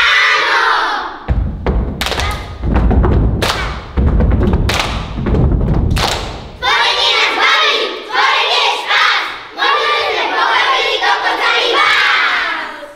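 A chorus of children shouting together, then a run of loud thumps and hand claps for about five seconds. After that the children chant together in unison, trailing off near the end.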